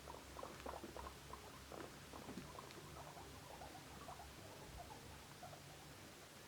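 Guinea pigs making faint, quick, irregular small sounds, several a second, that thin out after about four seconds.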